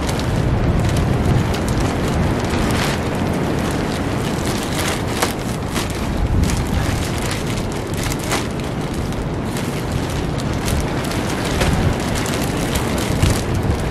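Wind buffeting the microphone with a loud, steady rumble, while plastic sheeting crackles and rustles in sharp bursts at irregular moments.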